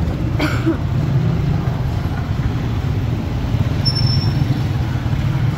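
Street traffic: a steady low engine rumble from motorcycles and motor tricycles on the road, with one motorcycle riding past.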